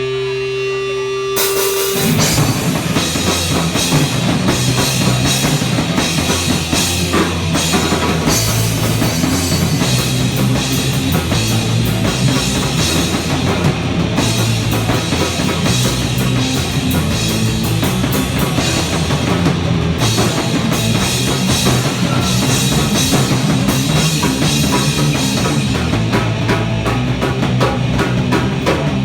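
Rock band playing live: a held guitar chord for the first second or so, then the drum kit and distorted electric guitar come in together and the band plays on at full, steady loudness.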